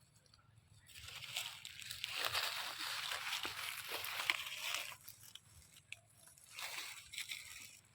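Water sloshing and splashing for about four seconds, then a shorter splash near the end.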